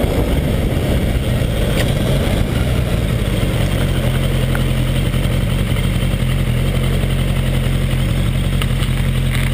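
Suzuki Bandit 1200's air/oil-cooled inline-four engine running at a steady pitch, with a few faint light clicks over it.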